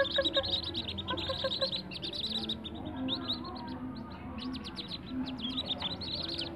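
Whistling duck ducklings peeping: many quick, high peeps from several chicks at once, overlapping in a busy stream.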